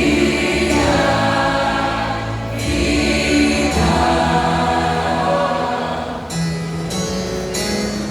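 Small vocal group singing a gospel worship song in harmony, with sustained musical accompaniment underneath.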